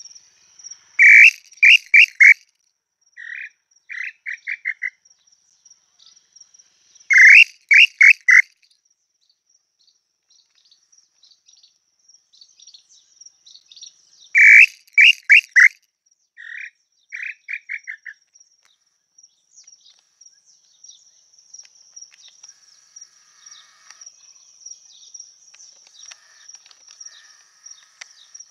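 Tataupa tinamou (inhambu-chintã) singing three times: each phrase a few loud whistled notes followed by a quicker run of shorter notes that speeds up and fades. A steady high insect whine runs underneath.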